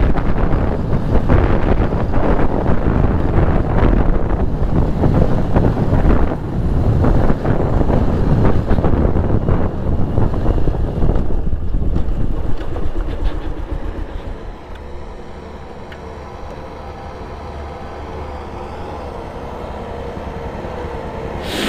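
Wind buffeting the microphone over a Bajaj Pulsar 220F's single-cylinder engine and tyres on a dirt road. About two-thirds of the way through the bike slows, the wind noise falls away and the engine's steady running comes through.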